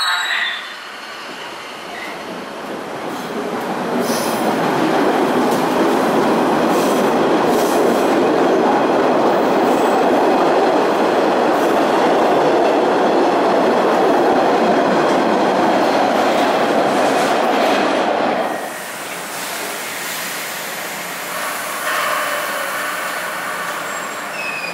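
Orange Line subway train pulling out of an underground station, its running noise building as it picks up speed past the platform and staying loud until it drops away after about 18 seconds. Quieter train noise with a few brief high squeals follows near the end.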